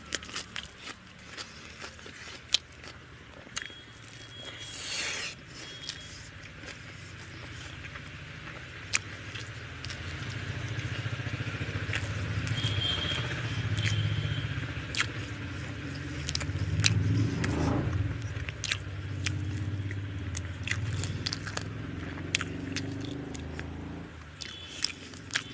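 Eating by hand from a steel plate: fingers mixing and scraping rice and chicken curry, with chewing, lip smacks and many sharp clicks. A low steady rumble builds about ten seconds in and fades near the end.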